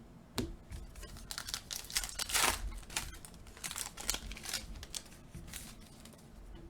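A foil trading-card pack crinkling and tearing open while cards are handled. It is an irregular string of crackles and rustles, loudest about two and a half seconds in.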